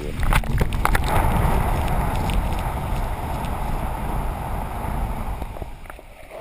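Whitewater churning and wind buffeting an action camera's waterproof housing as it tumbles through breaking surf, with a few sharp knocks about half a second in. The sound dulls and drops near the end as the camera goes under the water.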